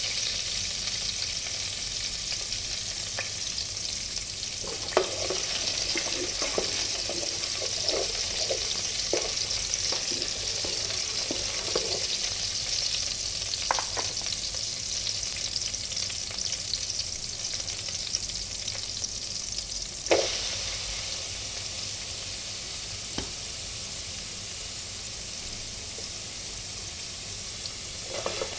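Chicken frying in a pan with a steady sizzle, broken by scattered scrapes and knocks of a utensil stirring it, and one sharper knock about twenty seconds in.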